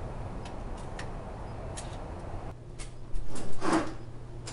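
Motel room door being unlocked and opened: a few light clicks from the key-card lock and handle, then a louder noise of the door opening about three seconds in.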